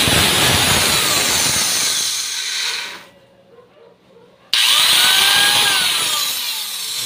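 Electric angle grinder motor running in two bursts. It runs for about three seconds and fades out, then starts again suddenly midway, its whine rising and then sinking as it winds down.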